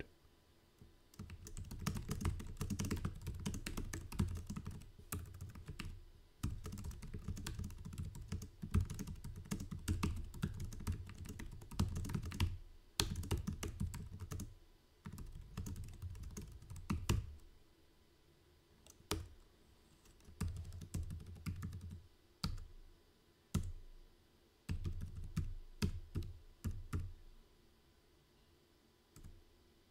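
Typing on the Dell KM7120W wireless keyboard: long runs of quick key clicks at first, then shorter bursts of keystrokes on the number keys and numeric keypad, stopping a little before the end.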